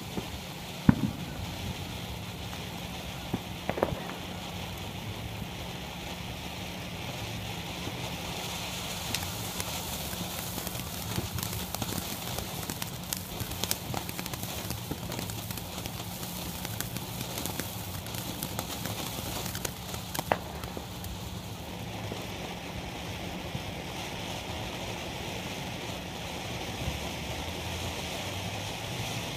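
Consumer ground fountain firework (Color Shock) spraying sparks: a steady hiss with scattered crackles and a few louder pops, about 1, 4 and 20 seconds in.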